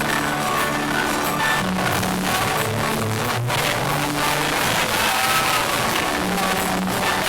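Music playing steadily: a bass line and sustained melody notes over a loud band sound.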